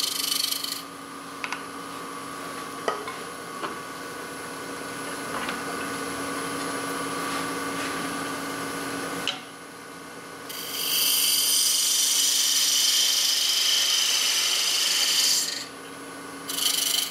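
Wood lathe running with a steady motor hum while a turning tool scrapes the top of a spinning boxwood lid, a light finishing cut. The cutting hiss comes and goes: briefly at the start, loudest in a long pass from about ten and a half to fifteen and a half seconds, and again shortly near the end.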